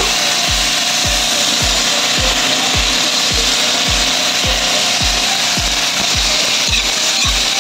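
Chopped chicken sizzling in a wok while a spatula stirs and scrapes it around the pan, over background music with a steady low beat about twice a second.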